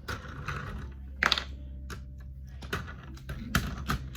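Plastic LEGO pieces being handled: a handful of scattered sharp clicks and knocks, the loudest about a second in.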